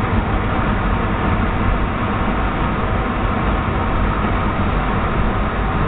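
Boeing 757-200 cabin noise while taxiing on a wet taxiway: the jet engines running at low taxi power, a steady drone with a constant rushing noise.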